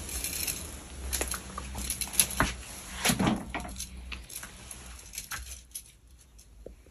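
Scattered light taps, scuffs and rustles of a kitten's paws and a wand toy on the floor, with a louder scuffle about three seconds in, over a low steady hum that fades out about halfway.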